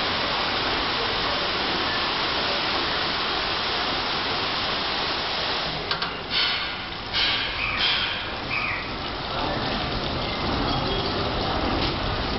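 High-pressure water jets of a touchless car-wash gantry spraying a car with a steady hiss. About halfway through, the spray comes in a few short spurts before the steady hiss resumes.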